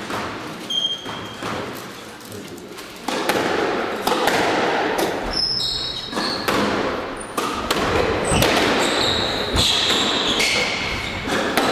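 Squash rally: the ball is struck by racquets and smacks against the court walls again and again. Short high shoe squeaks on the court floor come in among the hits.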